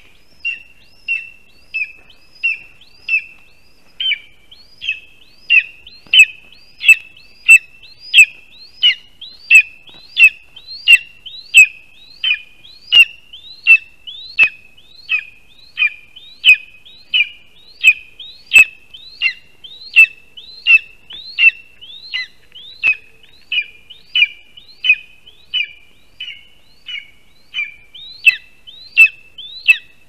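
Lesser spotted eagle calling over and over, a short high call about one and a half times a second, getting louder a few seconds in.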